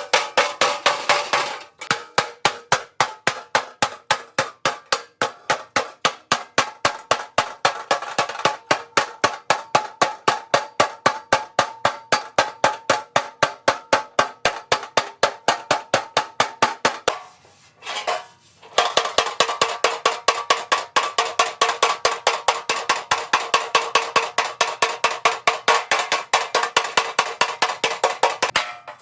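Rapid, steady hammer blows on ringing sheet metal, about four a second, typical of panel beating on a rusty car body. The blows stop briefly just after halfway and then resume with a different ring.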